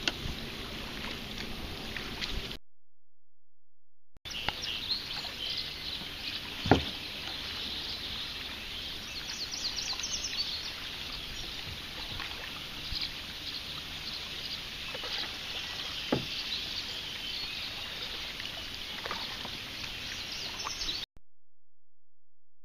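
Marsh ambience: many small birds chirping and singing over a steady wash of background noise. A couple of sharp knocks come through, the loudest about seven seconds in, and the sound cuts out completely for a moment near the start and again near the end.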